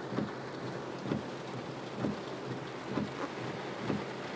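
Steady rain-like noise of water heard from inside a car on flooded roads, with a low thump repeating about once a second.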